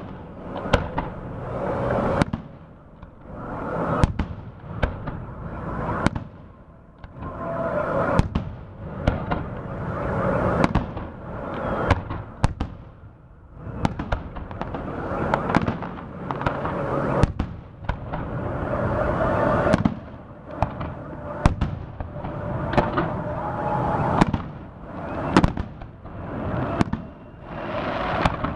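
Fireworks salute: aerial shells bursting one after another in sharp bangs over a continuous crackle and rumble. The noise swells and fades in waves every couple of seconds.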